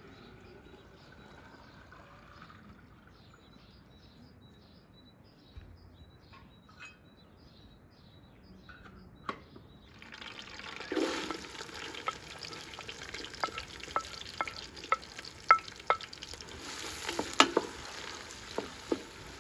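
Chopped onions frying in hot oil in a pot. The sizzle starts suddenly about halfway through, with a wooden spoon stirring and clicking sharply against the pot again and again.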